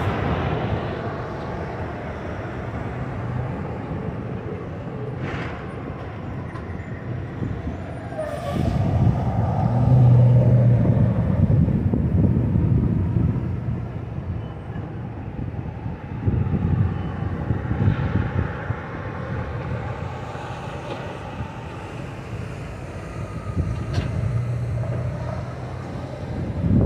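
Diesel tractor-trailer semi trucks passing and turning through an intersection, engine sound swelling as each one goes by, loudest about ten seconds in and again near the end.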